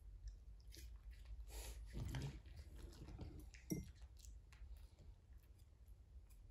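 A Yorkshire terrier chewing a small treat: faint crunching bites for a couple of seconds, with one sharper crunch a little past the middle.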